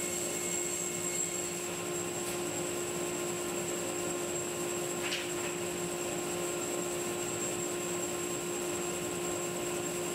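A large 36-inch Oliver bandsaw running steadily while ripping the bark edge off a rough cherry board: an even machine hum with a thin high whine over it.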